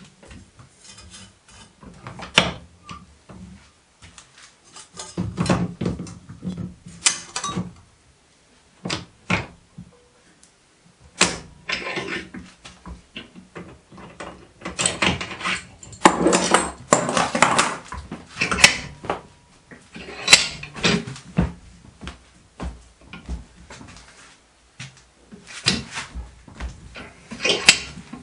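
Copper sheet, a steel jogging jig and a cast-iron bench vice being worked by hand: irregular metal clanks, clicks and short scraping sounds as the sheet is set in the jig and the vice handle is turned to press the jog into the copper.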